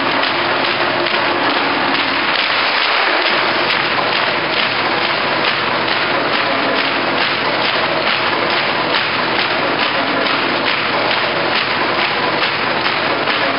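Ice-hockey arena crowd cheering and applauding, with steady rhythmic clapping setting in about four seconds in.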